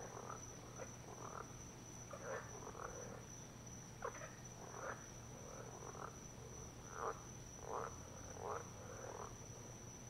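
Frogs calling at night, faint short calls repeated every half second to a second or so, over a steady high-pitched whine.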